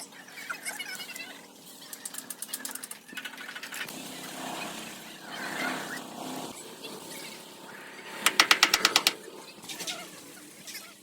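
Rapid rattling of a power tool, about eleven strikes a second: a short faint run about two seconds in and a loud run of about a second near the end.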